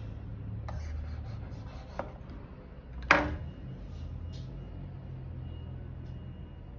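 Small handling noises at a counter, rubbing and light taps, with one sharp click about three seconds in, over a steady low hum.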